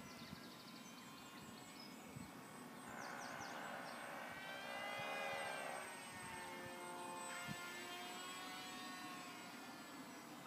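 Electric motor and propeller of a small EPP flying-wing RC plane whining as it flies past, growing louder about three seconds in and sliding in pitch as it goes by, then easing off.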